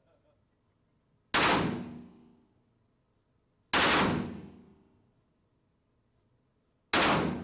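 Gunfire from a gun being shot at a target: three loud, sharp reports spaced a couple of seconds apart, each trailing off over about a second.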